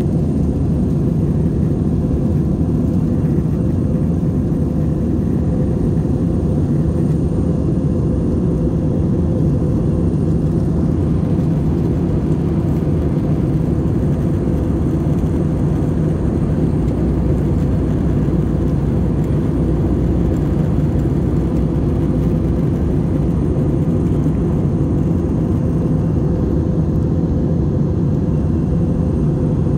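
Airliner cabin noise in flight: a steady, even drone of engine and rushing air, deepest in the low range, with a faint steady hum running through it.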